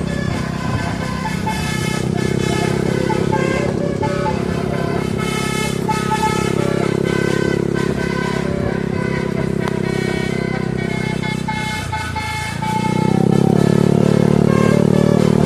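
Bus telolet horn, a 36-note multi-trumpet air horn, playing a quick stepping melody over a held low chord, with road and engine noise. The horn dips about twelve seconds in, then comes back louder.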